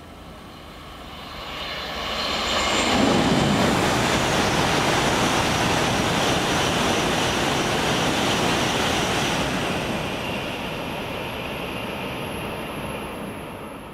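Series E6 and E5 Shinkansen coupled set passing through the station at speed: a rush of air and wheel-on-rail noise that builds over about three seconds, stays loud while the cars go by, then fades away as the train recedes.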